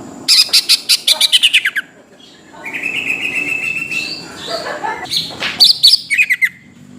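Cucak ijo (greater green leafbird) singing: a fast string of sharp, falling chirps, then a long held whistle, then another quick burst of sharp notes near the end.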